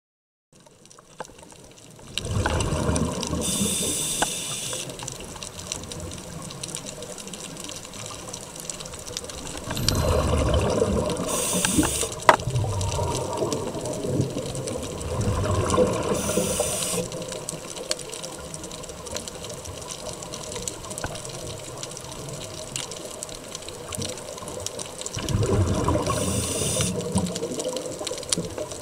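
Scuba diver breathing underwater through a regulator: four rushing bursts of exhaled bubbles several seconds apart, each with a short high hiss from the regulator, over a steady underwater wash.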